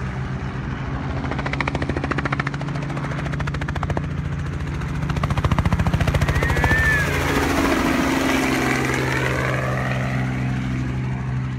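Light helicopter flying low passes overhead: rapid rotor blade chop over a steady engine drone, the chop pulsing loudest about five to seven seconds in as it comes closest.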